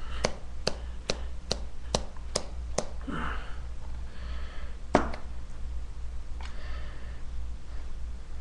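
Seven sharp, evenly spaced taps, a little over two a second, typical of a can of Grizzly Wintergreen dipping tobacco being packed before a dip is taken. A brief sniff follows, then one louder click about five seconds in, then faint breathing, over a low electrical hum.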